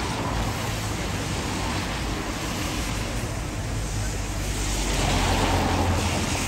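Wind buffeting the microphone outdoors: a steady rushing rumble that grows a little louder about five seconds in.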